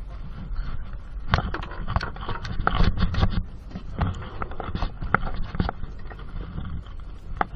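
A freshly caught fish being handled and unhooked over a plastic basket: irregular knocks, taps and scrapes, busiest in the first half, over a steady low rumble.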